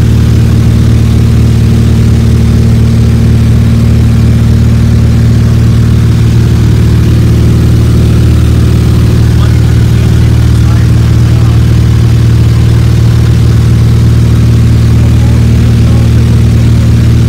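1950 Beechcraft Bonanza's Continental flat-six engine and propeller running steadily in flight, heard from inside the cockpit as an even, low drone.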